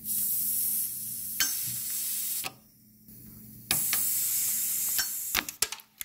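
Pressurised nitrogen hissing out of the Schrader valve on a car's AC service port in two spurts, the first about two and a half seconds long, the second about a second and a half, as a valve-core tool works the valve. A quick run of sharp clicks follows near the end.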